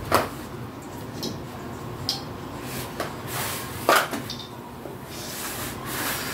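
Hands working among artificial Christmas tree branches, string lights and ornaments: irregular rustling and small clicks, with two sharper knocks, one at the start and one about four seconds in.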